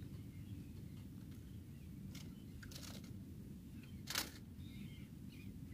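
A few sharp clicks and taps from small fishing tackle being handled, the loudest about four seconds in, over a low steady rumble.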